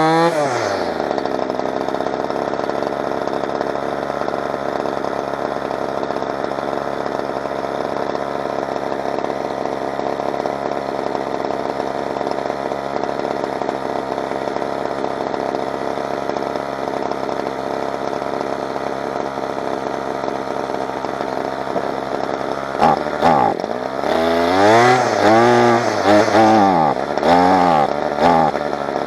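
Kawasaki KTF27A string trimmer's two-stroke engine settling from a rev into a steady idle, then revved up and back down several times near the end. It is running again after a choke repair, though still in need of fine tuning.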